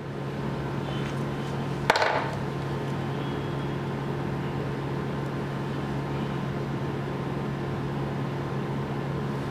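Steady low electrical hum with a faint buzz, and one sharp click of a metal hand tool against the work about two seconds in.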